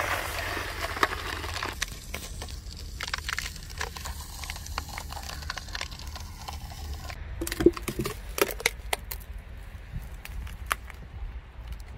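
A car tyre slowly crushing things on asphalt over a low steady rumble. First a can of white foam is squashed, with a hiss that fades over the first couple of seconds. Then, about seven to nine seconds in, a cardboard crisps tube gives way with a run of sharp cracks and crackles.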